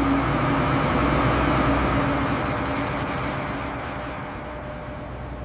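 Steady mechanical rumble with a low hum, joined from about a second and a half in by a thin high whine that stops shortly before the end.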